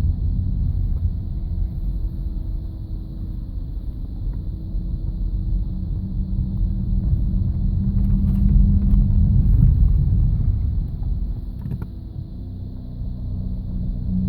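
Low-pitched groaning, growling noise from the front of a 2009 Audi A3 Sportback 2.0 TDI, a steady low tone over a rumble that swells in the middle and eases near the end. It comes under load when turning near full lock and stops when the clutch is pressed; a new electric steering rack, wheel bearing and front brakes have not cured it.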